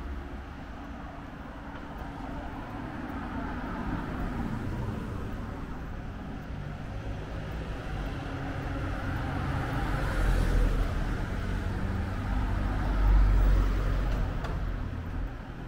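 A motor vehicle driving past on the street. Its engine and tyre noise grows steadily louder, peaks with a deep rumble a little past the middle, then fades near the end.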